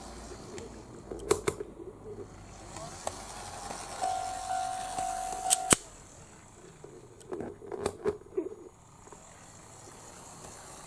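KATO automatic level crossing for model railways sounding its electronic warning tone for about a second and a half near the middle, cutting on and off abruptly. A few sharp clicks and a low rattle from the model track and crossing are heard around it.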